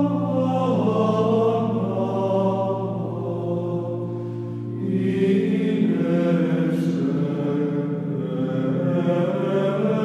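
Background music: a slow vocal chant of long held notes over a steady low drone, the notes shifting about halfway through.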